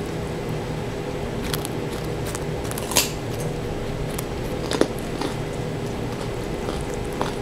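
Rabbit biting and crunching a raw carrot: a handful of short, sharp crunches at irregular intervals, loudest about three seconds and five seconds in, over a steady low hum.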